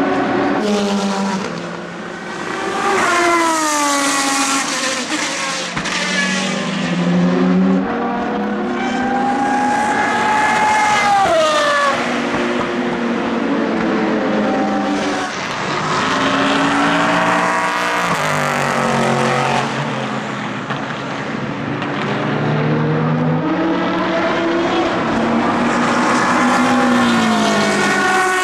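Several endurance race cars passing one after another at racing speed, engines revving up and dropping back through gear changes, often more than one engine heard at once.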